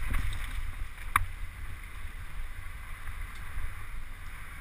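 Mountain bike riding fast down a dirt forest singletrack: a steady low rumble of tyres and bike rattle over rough ground, with wind buffeting the action camera's microphone. One sharp click about a second in.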